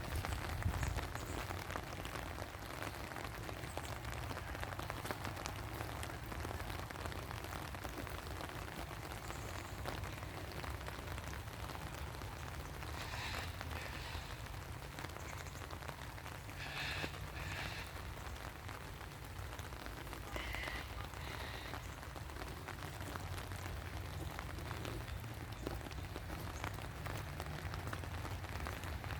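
Steady rain falling, with many small drop ticks throughout. A few short high chirps come through around the middle.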